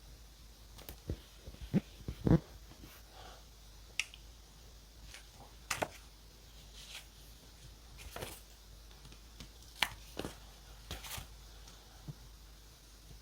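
Journaling supplies being handled on a desk: scattered sharp clicks and taps with light paper rustling, the loudest cluster of taps about two seconds in.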